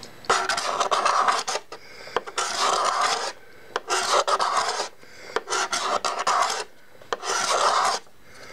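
Hand-held steel card scraper with a burred edge scraping boxwood deck planking, shaving off the high spots to level the planks. About five strokes, each about a second long, with brief pauses between.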